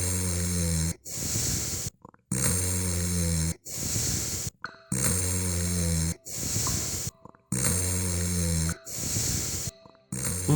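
Cartoon-style snoring from a sleeping character, repeated about every two and a half seconds. Each snore is a low, rattling breath in followed by a hissing breath out.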